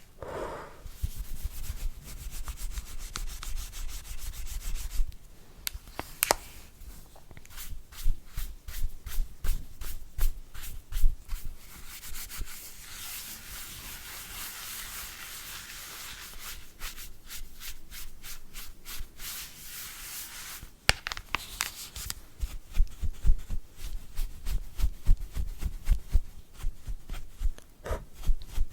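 A brush scrubbing close-up over a hard gadget surface in runs of quick, even strokes, with short pauses between runs.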